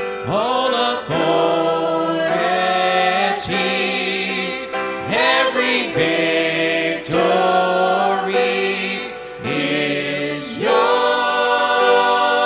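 Christian worship song being sung with musical accompaniment.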